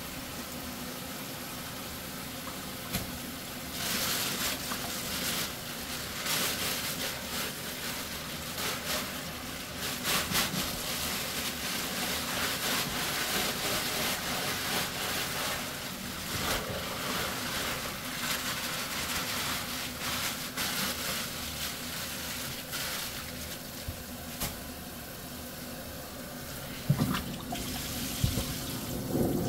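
Water running and splashing into a stainless steel kitchen sink while plastic bags are pulled off whole fish, with crinkling plastic. The noise swells a few seconds in, and there are a few knocks near the end.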